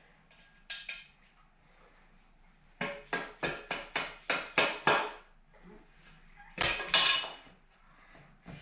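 Metal tapping and clanking on a motorcycle engine and frame during assembly: a couple of light clicks, then a quick run of about eight sharp taps, about four a second, growing louder, then two loud clanks.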